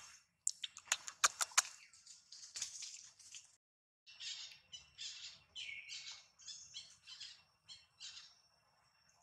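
A quick series of short, shrill animal squeaks and squawks, with a few sharp clicks in the first two seconds; the sound breaks off briefly about four seconds in.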